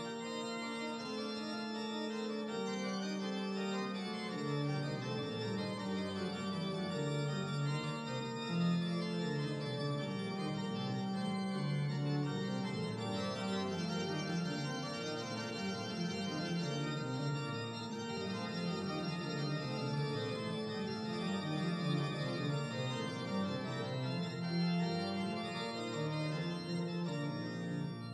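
Organ music: slow, held chords whose notes change every second or two.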